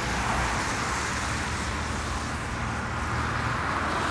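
Steady rushing road noise with a low rumble underneath.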